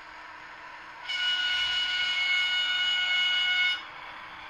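The sound decoder of an HO-scale FS E444 electric locomotive model sounding its horn. It is one steady chord of several pitches that starts about a second in, lasts about two and a half seconds and cuts off sharply, over a faint steady hiss.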